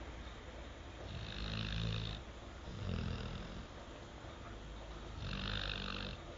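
Snoring during sleep: three snores, about one, three and five and a half seconds in. The first and last carry a hissy, wheezing edge over the low rumble.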